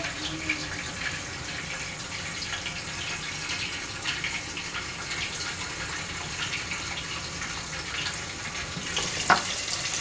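Soaked vadi (lentil dumplings) frying in hot oil under a glass lid: a steady sizzle with small pops and crackles as the water on them spatters. About nine seconds in there is a sharp clink, and the sizzle grows louder.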